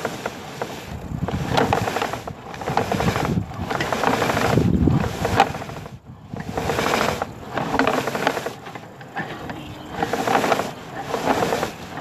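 Sewer inspection push camera's cable being fed down the line: rasping, rubbing scrapes with a light clicking, coming in surges every second or two as the cable is pushed along.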